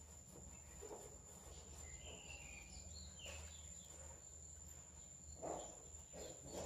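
Very faint room tone: a steady high-pitched whine over a low hum, with a few faint chirps in the middle and soft clicks and knocks in the second half as wire ends are handled against a plastic socket.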